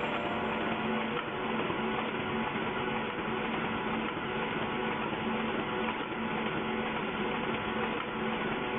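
Paper tableware-making machine running steadily: an even mechanical noise with a constant low hum.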